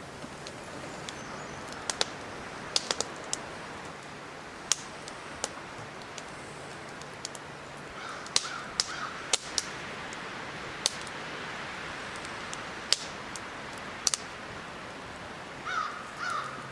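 Wood fire crackling in a small box wood stove, with sharp, irregular pops every second or so. A crow caws a few times about eight seconds in and again near the end.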